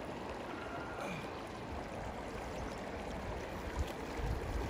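River water rushing steadily through shallows, with a few low thumps near the end.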